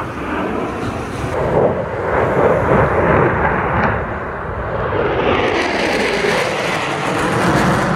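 Jet noise from U.S. Air Force Thunderbirds F-16 Fighting Falcons passing overhead in a four-ship diamond formation. It is a loud, steady rush that swells a couple of seconds in and grows brighter and louder over the last few seconds as the jets come closer.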